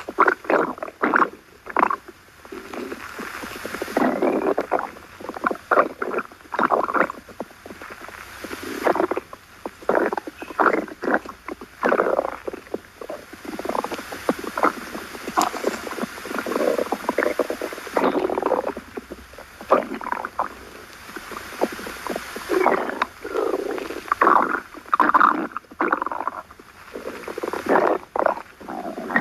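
Stomach growling: a close, irregular run of gurgles, short pops and longer rolling gurgles, one after another with only brief gaps.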